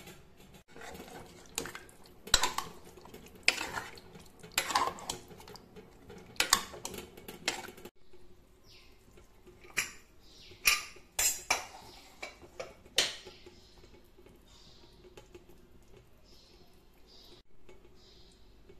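Metal clinking and scraping against an aluminium pressure-cooker pot, as from a spoon or lid being handled in the curry pot. The sharp clinks come irregularly in two bunches and stop after about thirteen seconds, leaving only faint scattered sounds.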